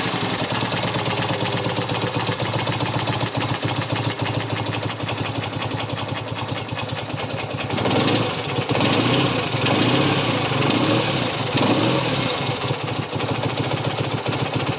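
1965 BSA A65 Lightning Clubman's 650 cc parallel-twin engine running on the throttle while still cold, not yet warm enough to tick over on its own. From about eight seconds in the revs rise and fall a few times.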